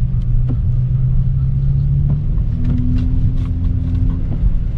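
Car driving slowly, engine and road rumble heard from inside the cabin, with a steady low hum that shifts to a higher hum about halfway through and a few light clicks.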